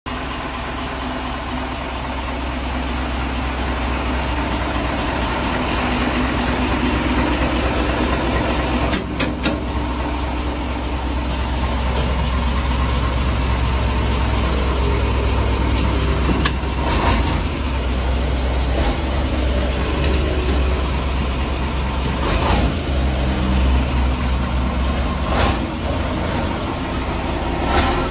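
Heavy logging truck's diesel engine running, a steady low drone under broad mechanical noise, with a few sharp knocks and rattles in the second half.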